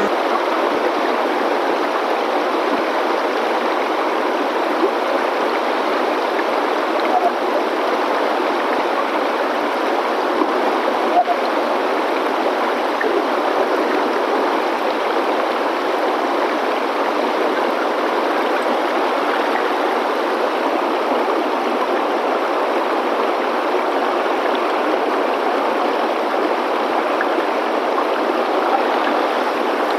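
Shallow mountain stream rushing over rocks and boulders, a steady, even rush of water.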